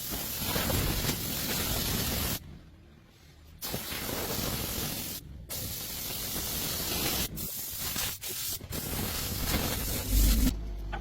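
A spray nozzle hissing in several long bursts with short pauses between them, as when spraying a car part in a workshop. A low thump comes near the end.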